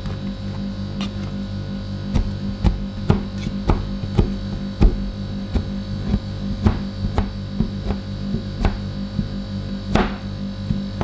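Metal spatulas striking a steel ice-cream cold plate, sharp knocks about twice a second starting about two seconds in, typical of chopping TWIX into the ice cream mix. Under them the cold plate's refrigeration unit keeps up a steady, pulsing hum.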